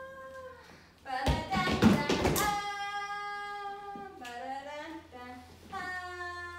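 A woman's voice singing out long, drawn-out wordless sounds to carry the rhythm of a dance routine, with a burst of sharp taps and claps between about one and two and a half seconds in.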